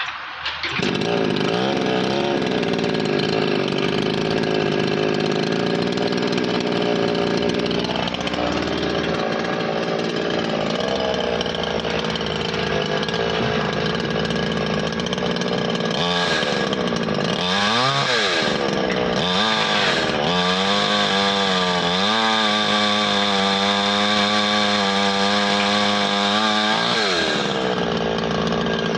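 Daewoo two-stroke chainsaw engine running steadily, then revved up and down a few times past the middle, held at higher revs for several seconds and let back down near the end.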